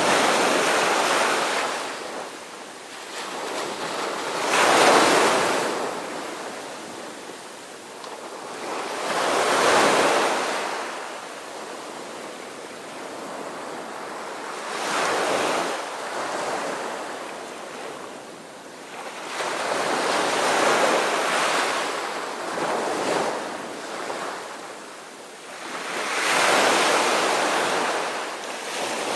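Ocean waves breaking and washing in, a surge of rushing noise swelling and fading about every five seconds.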